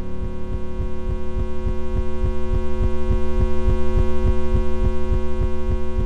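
Experimental electronic drone: a stack of steady held synthesized tones over a low throbbing pulse about five times a second. Both are tuned from particle lifetimes, the pulse from the charged muon's mean lifetime scaled down by octaves and the pitch from the charged pion's.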